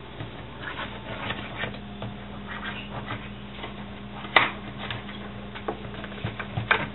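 Metal spatula scraping and tapping against a metal baking pan as it is slid under baked ladyfinger cookies to loosen them, with a sharp clink about four seconds in and another near the end, over a steady low hum.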